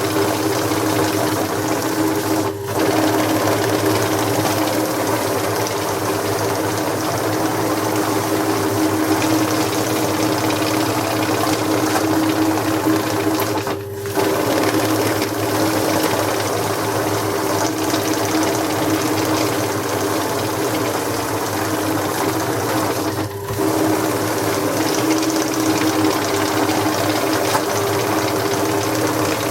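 Banknote counting machine running at speed: a steady motor hum under the rapid riffling of notes through the feed. The sound dips briefly three times, about 2.5, 14 and 23 seconds in, then carries straight on.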